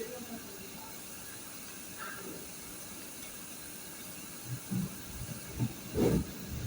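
Steady hiss of background noise, with a few short dull thumps in the last two seconds, the loudest about six seconds in.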